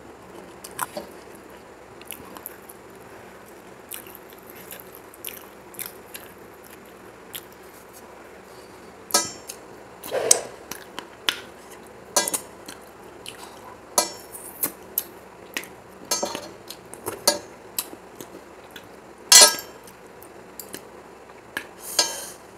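Close-up eating sounds: chewing and mouth clicks, with fingers scraping and tapping on a metal plate. The sounds come as scattered sharp clicks and taps, with a handful of louder ones in the second half.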